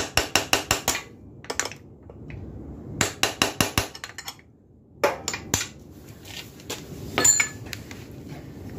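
Hammer tapping on metal while working a stuck part loose on an ATV engine: two quick runs of about half a dozen ringing strikes each, then a few single knocks.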